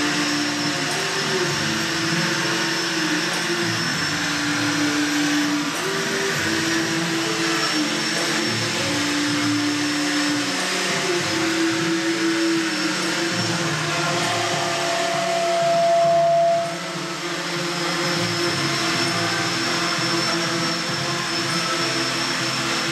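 Small quadrotor drone hovering and manoeuvring, a steady buzzing hum from its rotors whose pitch shifts as it moves. About 14 s in, a higher tone swells louder, then drops away abruptly a couple of seconds later.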